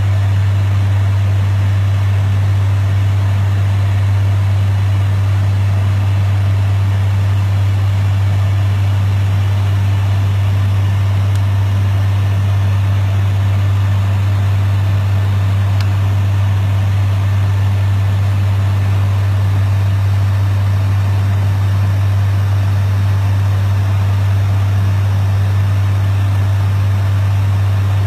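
Steady cabin drone of a turboprop airliner in cruise, heard from the cockpit: a constant deep propeller hum under an even wash of engine and air noise.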